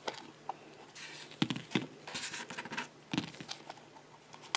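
Hands peeling Play-Doh off a plastic surprise egg and handling the egg: irregular soft scratches, rubbing and small plastic clicks.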